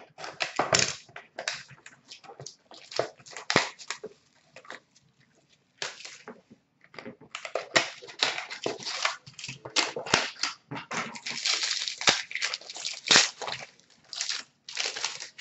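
Crinkling and tearing of a hockey card pack's wrapper as it is ripped open and handled: many short, irregular crackles in clusters, with brief pauses.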